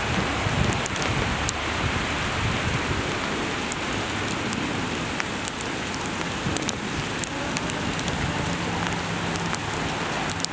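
Steady rain falling on an elevated subway platform and its structure: an even hiss scattered with sharp drop ticks. A low rumble of the departing train fades out in the first second or two.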